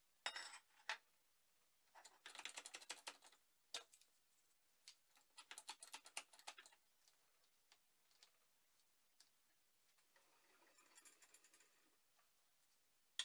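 Faint clicking and tapping of small steel parts and locking pliers being handled and set into the jaws of a bench vise, in several short clusters of rapid clicks.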